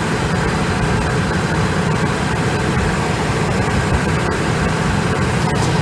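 A 1999 Lincoln Navigator's 5.4-litre V8 idling steadily, freshly refilled with synthetic oil after an engine flush.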